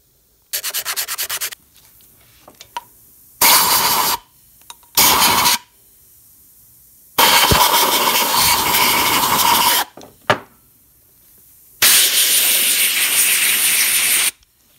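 A handheld compressed-air tool fired in five loud hissing bursts while the air-drill housing and parts are cleaned. The first burst is short and stuttering, the next two last under a second, and the last two run about two and a half seconds each.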